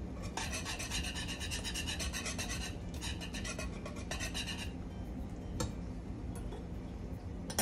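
A whisk scraping rapidly around a pot of thick cornmeal porridge, several strokes a second, working out lumps. It stops about four and a half seconds in, followed by a few light knocks.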